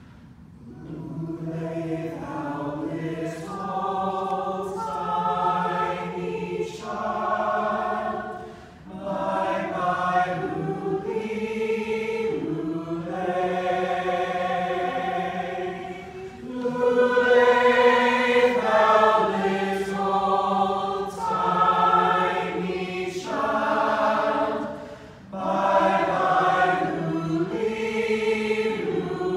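Mixed choir of men's and women's voices singing a slow song in sustained chords, coming in about a second in, with short breaks between phrases.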